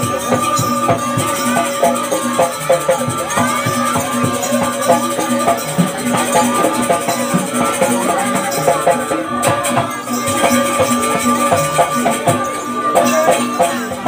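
Banyuwangi barong gamelan music playing: busy drum and percussion strikes over steady ringing tones, with a wavering melody line.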